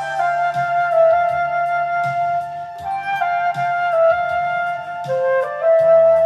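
Concert flute playing a pop-song melody over a karaoke MIDI backing track with bass and steady drums. The flute holds mostly long notes; near the end it dips briefly to a lower note and climbs back up in short steps.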